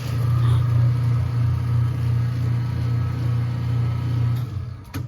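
Garbage disposal motor switched on and running steadily for nearly five seconds, a low hum with a rushing noise over it, then shut off shortly before the end. The unit is spinning after a jam of aquarium rocks was cleared.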